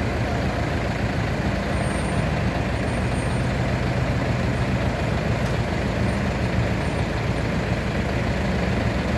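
Heavy vehicle engine running steadily with an even low drone.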